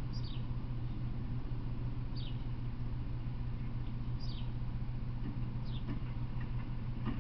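A bird calling, five short high chirps that each fall in pitch, about every one and a half to two seconds, over a steady low hum.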